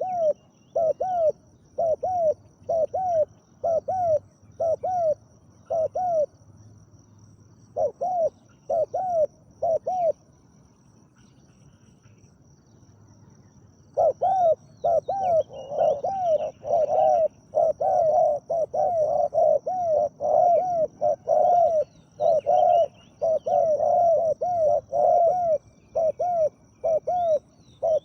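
Spotted doves cooing: short phrases of repeated arched coo notes that stop for a few seconds about ten seconds in, then resume more densely with phrases overlapping until the end.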